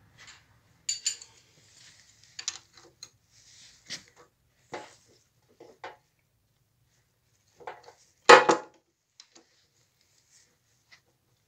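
Metal tools and engine parts clinking and knocking during the teardown of a Daewoo Damas engine's connecting rods: a string of separate sharp clinks, with the loudest knock about eight seconds in.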